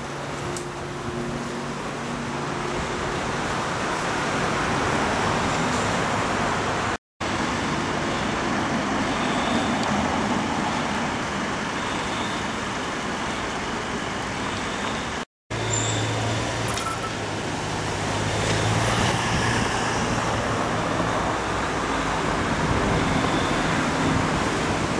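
Road traffic on a town street: cars, a van and a city bus driving past, a steady wash of engine and tyre noise. A low engine drone rises in the second half, and the sound drops out briefly twice at edits.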